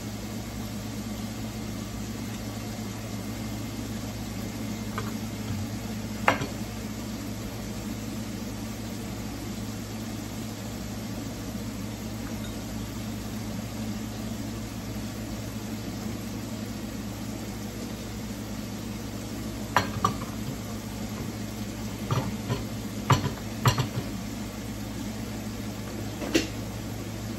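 Steady sizzle of vegetables frying in a pan over a low hum, with a few sharp knife clicks and knocks from cutting ripe plantain, most of them in the last third.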